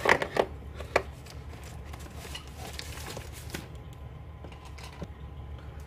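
Cardboard box wrapped in plastic being grabbed and slid aside: a few rustles and knocks in the first second, then faint scattered clicks.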